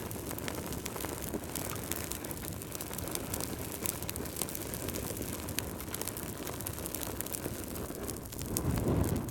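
Wood fire burning in a fireplace: a steady low rumble of flames with frequent sharp crackles and pops from the logs, the rumble swelling louder near the end.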